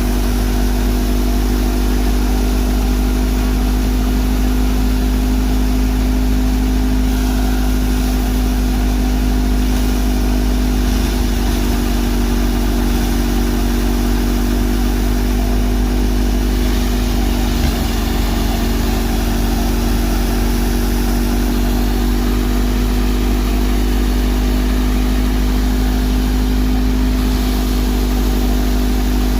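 Tractor-driven wheat thresher running at a steady speed: the tractor's diesel engine holds constant revs under load while the threshing drum and fan spin, with one brief knock about eighteen seconds in.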